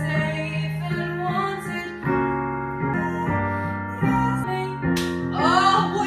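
Piano accompaniment playing held chords that change about once a second. A young woman's singing voice comes in about five seconds in, for a musical-theatre audition song.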